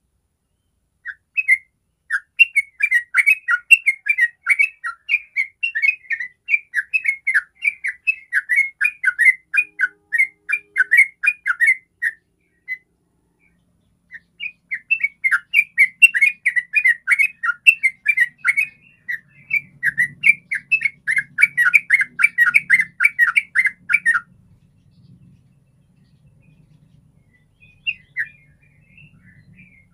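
Yellow-vented bulbul singing in a fast, unbroken run of chattering notes (the long 'ropel' song). It runs for about ten seconds, breaks briefly, runs again for about ten seconds, then gives a few scattered notes near the end.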